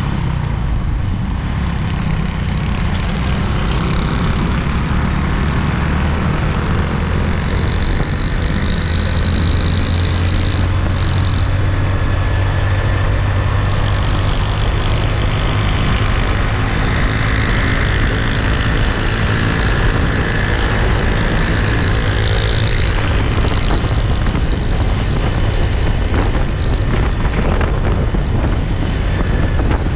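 Motorcycle engine running steadily at cruising speed amid highway traffic, with other vehicles' engines passing.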